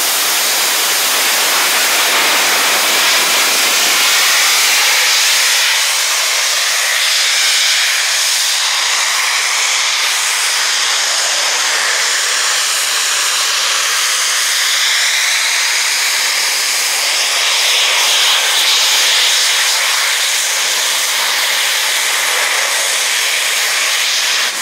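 Hydrogen peroxide rocket belt firing in flight: a loud, steady steam-jet hiss that wavers slightly in pitch and swells in level, cutting off suddenly at the very end as the belt shuts down on landing.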